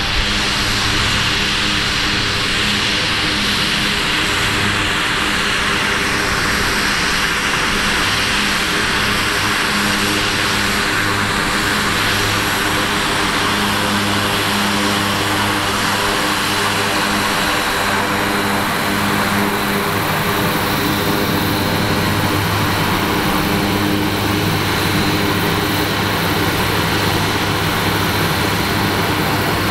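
Cessna 208 Caravan's PT6A turboprop engine and five-bladed propeller running steadily at low power on the ground, a constant hum under a rushing turbine hiss.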